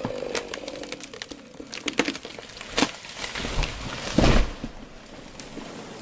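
A chainsaw's engine dies away at the start, then wood cracks and snaps several times, with a heavy thud a little past four seconds in.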